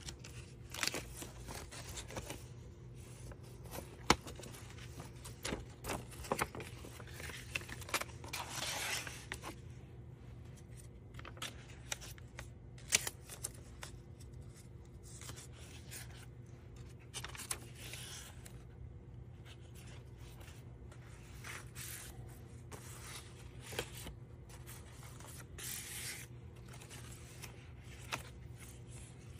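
Paper pages of a handmade junk journal being turned and handled: irregular rustling and scraping of paper, with a few sharp clicks, over a faint steady low hum.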